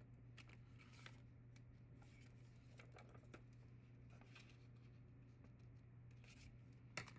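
Faint snips of scissors cutting paper: a scattering of small, separate cuts along the edge of a folded paper pocket.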